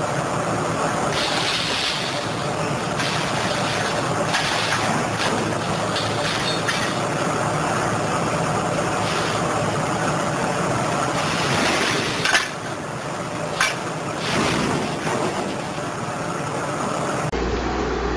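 A heavy machine's engine running steadily, with a few sharp metallic clinks and knocks partway through.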